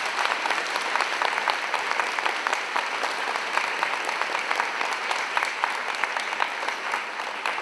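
Audience applauding steadily, the clapping fading out shortly after the applause ends.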